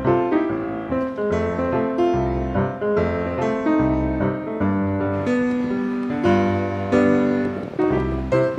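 Background music: a piano-led tune with a low bass note about once a second.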